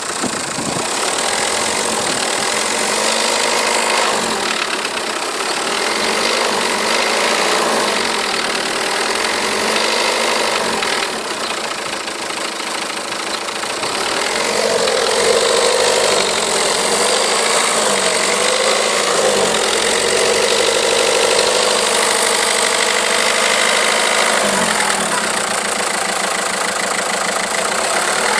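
Renault Megane II's 1.5 dCi four-cylinder turbodiesel engine running steadily, with the metallic knock that is being recorded to trace a fault.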